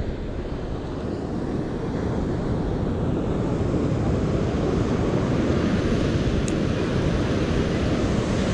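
Wind rumbling and buffeting on the microphone over the steady wash of surf breaking below an ocean pier, slowly growing louder.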